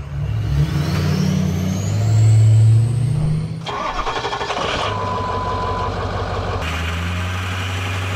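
Ford diesel pickup with a KC 11-blade turbine wheel revving, its turbo whistle rising steadily in pitch as it spools. About three and a half seconds in, the sound cuts to another Ford diesel pickup on the stock 13-blade turbine wheel, running steadily with a brief whistle.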